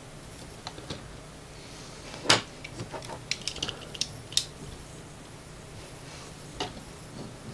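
Plastic and metal parts of a Transformers Devastator combiner toy clicking and knocking as it is handled. The loudest knock comes a little over two seconds in, a quick run of small clicks follows, and there is one more click near the end.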